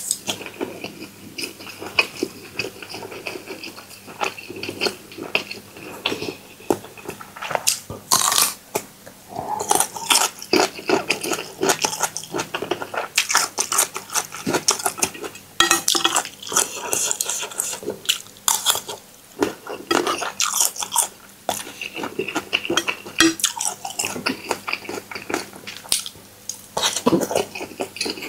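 Irregular crunching of food, with scattered clicks and clinks of utensils against dishes.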